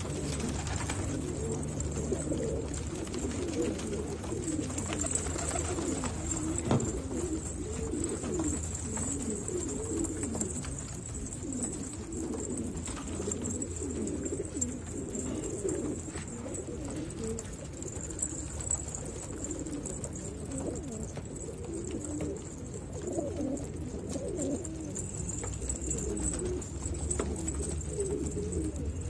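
Several German racing pigeons cooing, their low warbling coos overlapping without a break.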